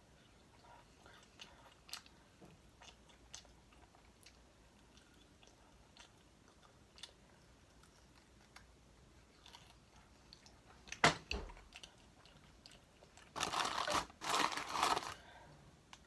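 Chewing crispy fried chicken wings: soft, scattered chewing clicks, a sharp knock about eleven seconds in, then two loud crunching bites near the end.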